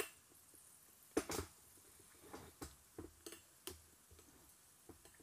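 Faint, scattered pops and ticks from a wonton frying in oil that is just starting to bubble, with a louder pop or two about a second in.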